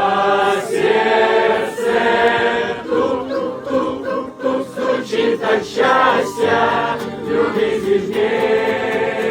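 A choir singing a cheerful song.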